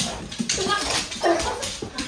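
Dog whimpering and yipping, a few short high cries, greeting its returning owner.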